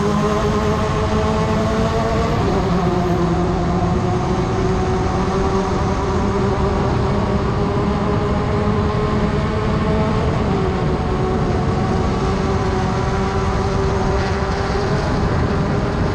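Class 10 off-road race car's engine running steadily at speed under a constant rush of noise, its pitch dipping slightly twice, about two and a half seconds in and again about ten seconds in.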